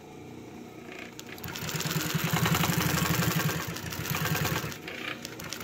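Consew 226 industrial walking-foot sewing machine, driven by a clutch motor, stitching through five layers of vinyl. It speeds up about a second in to a fast, even run of stitches, then slows somewhat near the end.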